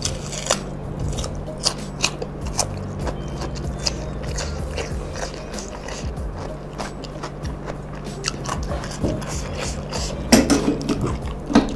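Close-miked chewing: a person eating a mouthful of food, with many small crunching clicks and mouth sounds and a louder cluster of them near the end, over quiet background music.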